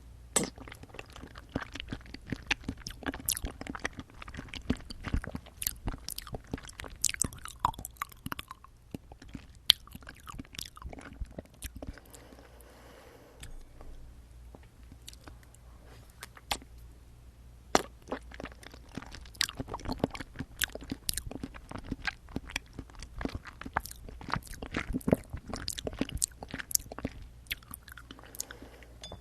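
Close-miked chewing and biting of jelly straws, a dense run of wet, clicky mouth sounds. It eases off into a sparser, quieter stretch about twelve seconds in, then picks up again from about eighteen seconds.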